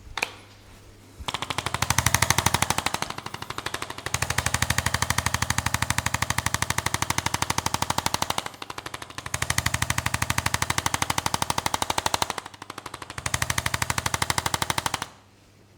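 Handheld percussion massage gun running against the body in a long run of rapid, even strokes, easing off or pausing a few times and stopping near the end.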